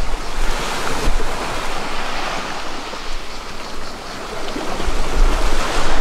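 Small waves washing onto a pebble shore: a steady surf hiss that swells about a second in and again near the end. Wind rumbles on the microphone toward the end.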